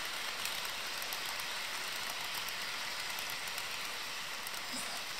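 HO-scale model freight train running along the track: a steady rushing whir of wheels and locomotive motors on the rails, with faint scattered clicks.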